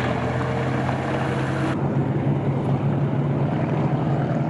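A steady motor hum with a rushing, hissing noise over it; the high hiss weakens about two seconds in.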